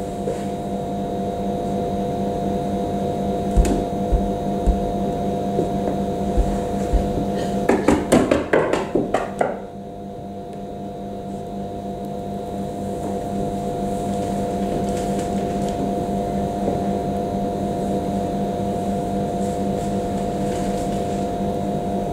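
Steady mechanical room hum with several held tones. A few soft knocks come about four seconds in, and a flurry of knocks and crackles around eight to nine and a half seconds in, from a performer moving on a wooden tabletop among cloth.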